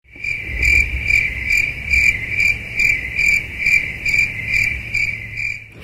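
Crickets chirping: a steady high trill pulsing about two and a half times a second. It cuts in suddenly after dead silence and cuts off suddenly, like an edited-in sound effect.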